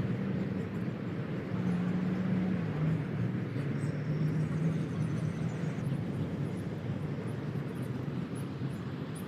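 A steady low mechanical drone over outdoor background noise, its pitch shifting slightly a couple of seconds in.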